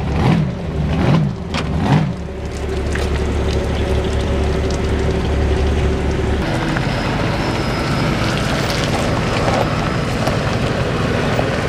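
Engine running with a steady low rumble that changes to a broader, noisier sound about six seconds in. Brief voices at the start.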